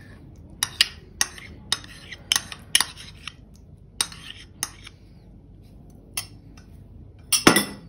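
A spoon clinking against bowls while yogurt is scraped out of a small bowl into a glass mixing bowl: a string of sharp, irregular clicks, about one every half second, with a quick cluster of louder clicks near the end.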